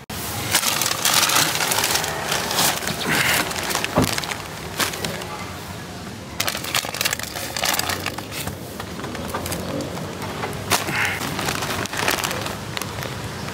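Paper takeout bags crinkling and rustling in quick irregular crackles as they are grabbed and handled, over background music.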